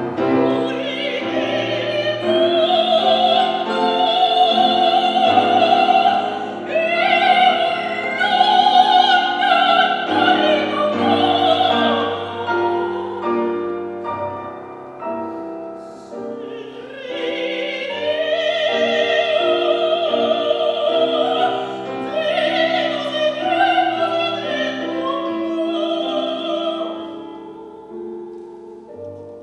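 Operatic singing with piano accompaniment, in long phrases with a wide vibrato. The voice stops near the end and the piano carries on alone.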